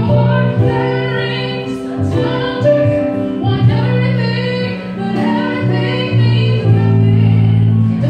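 Live neo-soul music: a woman singing, accompanied by keyboard and guitar.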